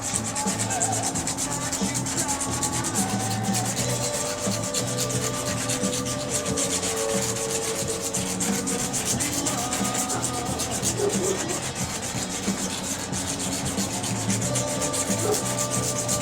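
Rapid, continuous rubbing and scraping against a car's painted body panel as hardened polyurethane spray-foam overspray is worked off the finish.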